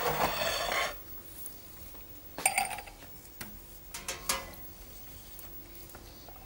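A large knife cutting through a cake's hardened chocolate couverture glaze, opening with about a second of scraping. The blade knocks and clinks on the plate twice, about two and a half and four seconds in.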